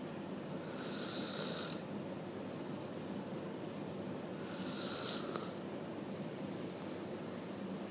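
Steady snoring in a slow breathing rhythm, with two louder, hissy snores about four seconds apart, near one second in and near five seconds in.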